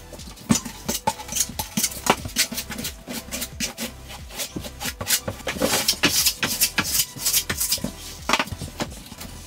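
A trowel scraping and tapping on the subfloor in quick irregular strokes as thinset mortar is spread, with the strokes thickest a little past the middle. Background music plays underneath.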